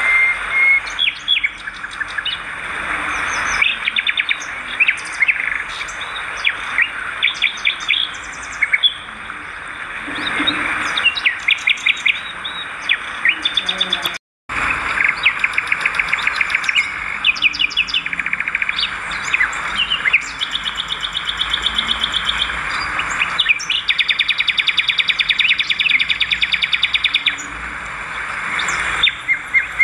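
Swiftlets twittering: dense, repeated chittering calls and fast rattling trills, with a brief cut-out about halfway through.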